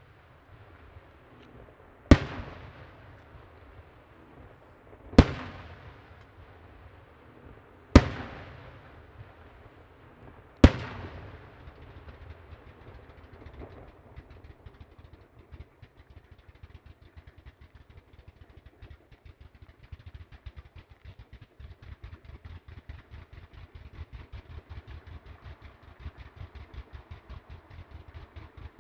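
Professional aerial fireworks display: four loud shell bursts about three seconds apart, each with an echoing tail, then from about twelve seconds in a dense run of rapid small pops and crackle as many effects fire together.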